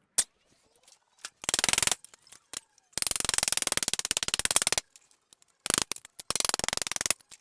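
Three bursts of rapid metallic clicking and scraping from hand tools working the seized harmonic balancer off a Ford Boss V8, with a few single clicks between them.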